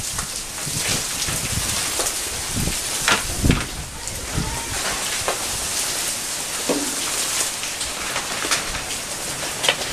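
Hail mixed with rain pelting a porch, patio and lawn: a steady dense hiss with scattered sharper clicks of individual hailstones striking.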